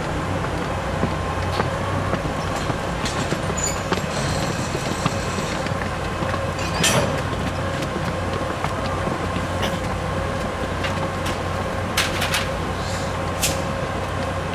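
Keiyo Rinkai Railway KD60 diesel locomotive running steadily at low revs with a constant hum. Several short metallic clanks are heard during coupling to the 205 series train, the loudest about seven seconds in.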